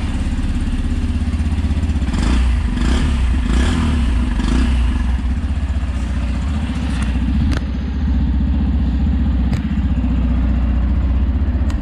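Yamaha FZ-X's 149 cc single-cylinder engine idling steadily just after starting, with a bassy, smooth exhaust note.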